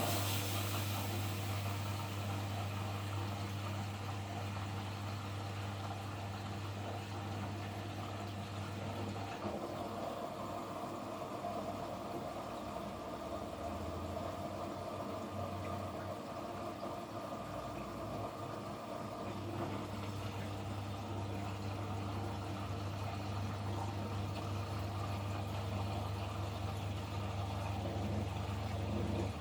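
Kunft washing machine running through a wash cycle: a steady low motor hum, which drops lower in pitch for a stretch in the middle and then comes back.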